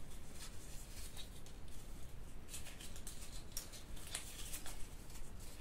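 Light rustling and scattered soft clicks of things being handled, as a ball of viscose-linen yarn is fetched and picked up.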